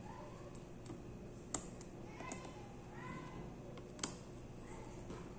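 Small sharp clicks of laptop parts being handled during disassembly, with two louder ones about one and a half and four seconds in.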